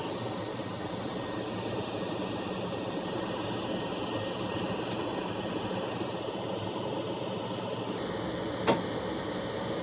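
Steady rush of air from a solder fume extractor fan, with a faint hum under it. A single sharp click about nine seconds in.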